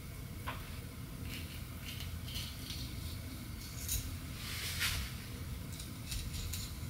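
Kitchen utensils and dishes clinking and scraping in a handful of short strokes, the longest about five seconds in, over a steady low hum.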